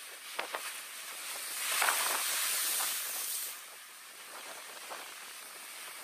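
Ocean waves breaking on volcanic rock: a wave surges in with a rushing hiss that swells after about a second, is loudest in the middle and fades away, with small splashes of water among the rocks before and after.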